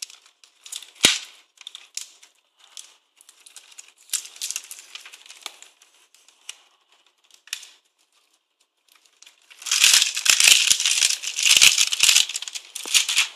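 Clear plastic shrink-wrap being torn off a cardboard phone box and crumpled by hand: scattered crackles and rustles at first, then a few seconds of loud, dense crinkling near the end.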